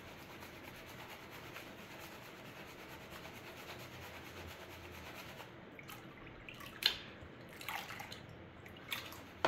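Muddy water swirling and sloshing in a plastic gold pan of wet paydirt as it is washed and the muck poured off. A few louder splashes come in the last three seconds.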